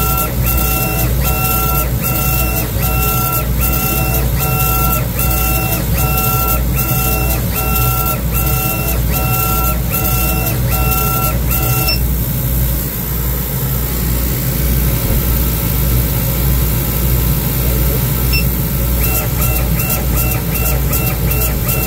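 Laguna laser engraver working a bamboo board: its moving head gives a short repeating whine about twice a second over a steady low machine hum. The whine stops for several seconds past the middle, then starts again near the end.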